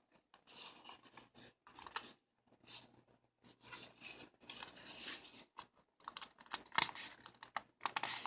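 Close handling noise of small plastic parts and paper or packaging: irregular clicks, scrapes and rustles in short spurts.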